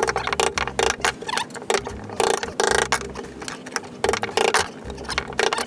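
Hammer striking the end of a big screwdriver that is used as a chisel on a plywood subfloor: a quick, uneven run of sharp taps, several a second, with brief pauses.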